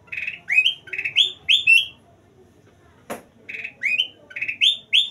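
Kutilang emas, a bulbul, singing: two runs of quick rising, slurred whistled notes, the same phrase given twice about three seconds apart. A single short knock sounds between the two phrases.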